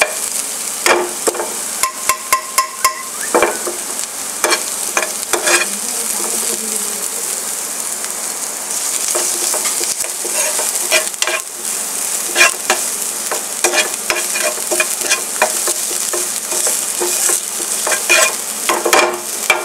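Chopped onion, garlic, ginger and green chillies being sautéed in hot oil in a non-stick frying pan, sizzling steadily. A steel spoon stirs them, scraping and clicking against the pan in bursts, with a stretch near the middle where only the sizzle is heard.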